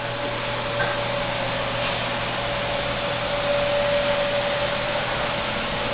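Steady mechanical hum and hiss with a constant faint whine, like a running motor or fan.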